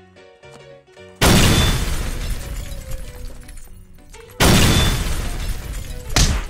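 Light plucked-string background music, cut through about a second in and again about four and a half seconds in by a sudden, very loud crash-and-boom sound effect that dies away over about three seconds each time, with a short third hit near the end.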